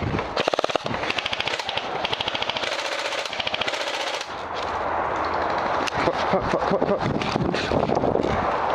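Airsoft guns firing rapid automatic bursts, a fast, even rattle, in the first half, then more scattered shots.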